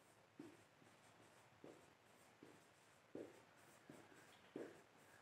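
Marker pen writing on a whiteboard: about six short, faint strokes and taps, spaced a little under a second apart, as digits are written down.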